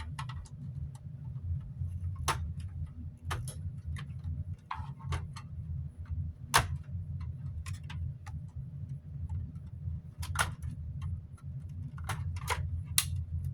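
Irregular sharp clicks and taps of plastic parts being pried and handled as the tabs of a small fan's rear cover are released to free its motor, over a steady low hum.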